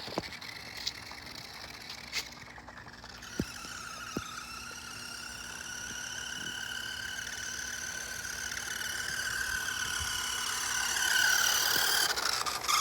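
Remote-control toy side-by-side's motor whining as it drives, growing louder over the second half, with a few sharp knocks in the first few seconds.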